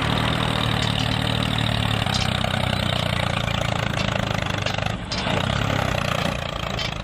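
Steady low engine running sound of a miniature toy tractor as it drives along pulling its trailer, with a brief dip about five seconds in.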